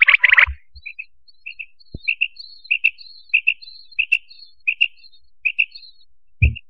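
Quail calling: a steady series of short, high paired notes, about one pair every half second or so. A faint low knock is heard about two seconds in, and another near the end.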